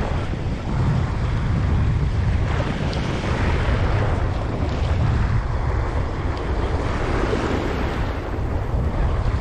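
Wind buffeting the microphone in a steady low rumble over the wash of waves.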